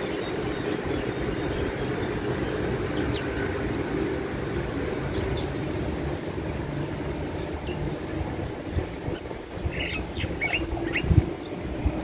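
Steady low mechanical rumble, like distant traffic or a passing train. A few short, high bird chirps come near the end, with a single thump just after them.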